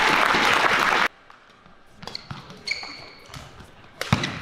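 Crowd applause and cheering in an arena that cuts off abruptly about a second in. Then a quiet hall with a few short squeaks from shoes on the court floor, light taps, and a thump near the end.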